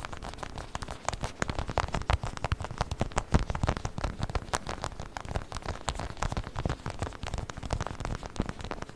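Tiny toy hands making a dense run of quick, irregular taps and scratches right at the microphone.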